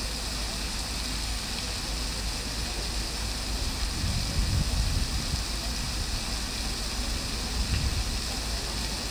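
Water from the Triton Fountain's jets splashing down into its basin: a steady, even rush of falling water, with two low rumbles rising under it about four seconds in and again near the end.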